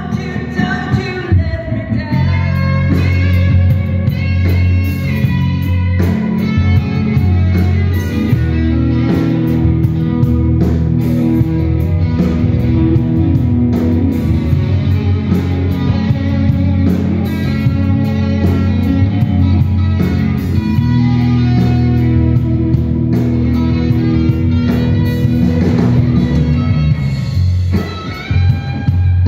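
A live rock band playing through the stage amplification: electric guitars, bass guitar and drums, with a brief dip in level near the end.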